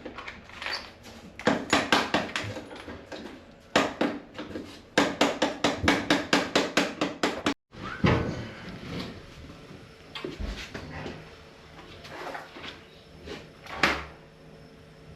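Hand tools working on the sheet metal of an old gas furnace: runs of rapid, even clicks, about five a second, then scattered metallic knocks and clunks, with one louder clunk near the end.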